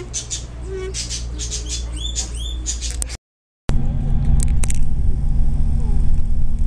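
Birds chirping and squawking, with many short high calls. About three seconds in, the sound cuts out for a moment, then gives way to the steady low hum of a car engine and road noise heard inside the cabin.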